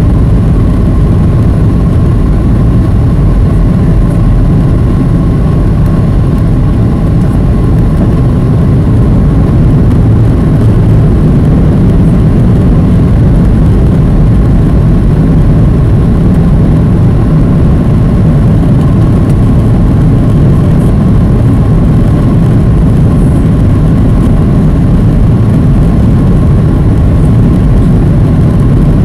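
Steady loud roar of a Boeing 737's jet engines and rushing air, heard inside the cabin, deep and even throughout, with a faint steady tone above it.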